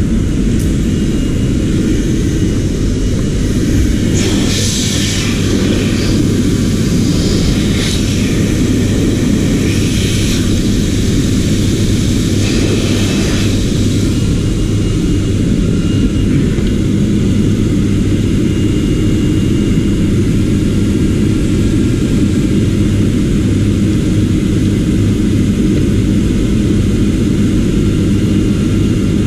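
A machine running with a loud, steady low drone and hum. Hissing bursts come and go between about four and fourteen seconds in.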